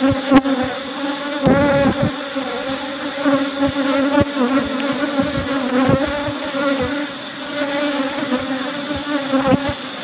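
Honeybees buzzing densely around an open hive: a loud steady hum, with single bees' pitch rising and falling as they fly close. A few soft low knocks come through the hum.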